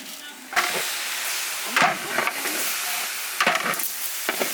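Rice and spices frying in hot oil in a large cooking pot, a steady sizzle that grows suddenly louder about half a second in, with a few scrapes of a stirring spoon against the pot.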